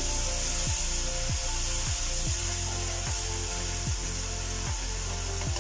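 Spatula stirring and scraping a thick masala around a large wok in steady, repeated strokes, a little more than one a second, over a constant sizzle and hiss. The masala is fried down to the point where the oil has separated and risen to the top.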